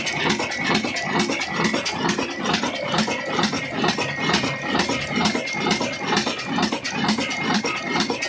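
Old Ruston diesel engine running steadily, with an even, rapid knocking clatter and a faint steady high whine over it.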